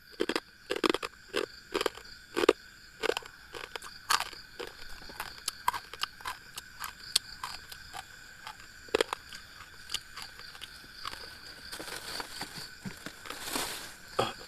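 Close crunching and crackling of someone chewing crunchy food, in irregular crisp bites several a second. A steady high-pitched ringing sounds underneath.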